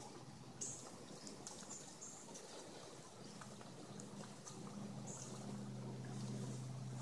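Faint footsteps scuffing down gritty, leaf-strewn steps. A low steady hum comes in about halfway through.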